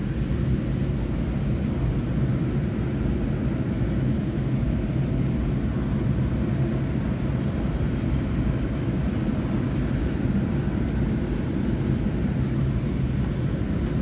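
Steady low rumble and hum heard inside a standing electric train carriage.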